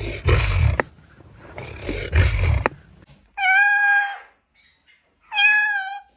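Bird calls: two rough, breathy bursts, then two clear, cat-like mewing calls of under a second each, about two seconds apart.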